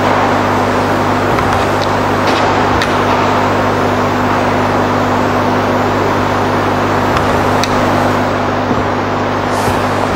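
Steady hiss with a low electrical mains hum running under it, and a few faint clicks scattered through.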